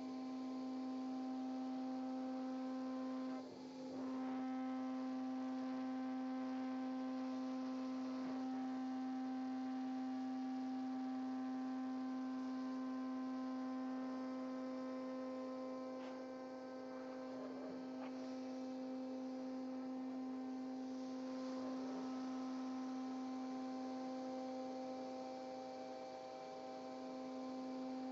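CNC router spindle running at a steady high speed: a steady high whine with overtones, which dips briefly about three and a half seconds in.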